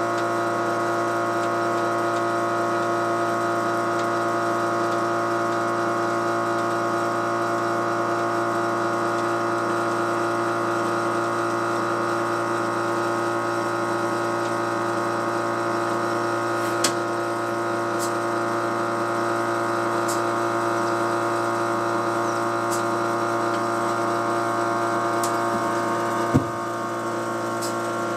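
A motor running with a steady hum of several fixed tones. Two short knocks break in, the louder one near the end, with a few faint ticks between them.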